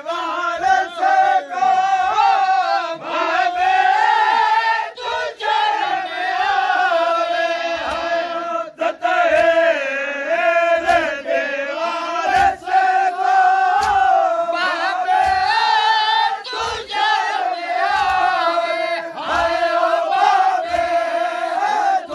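Male mourners chanting together in long, wavering held notes during matam, with the thud of hands beating chests in a steady rhythm about once a second.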